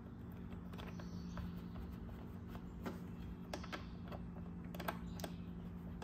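Scattered light clicks and ticks of a small hand tool against plastic trim and parts as hands work in a scooter's battery compartment. The clicks come thicker in the second half, over a steady low hum.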